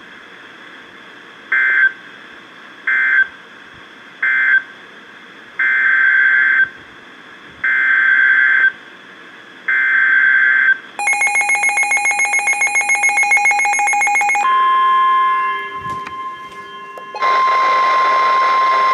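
NOAA Weather Radio SAME alert data bursts: three short bursts, the end-of-message code, then three longer bursts, the header of the next warning. Then a rapid beeping alert for about three and a half seconds, followed by the steady weather radio warning alarm tone with a burst of noise over it near the end.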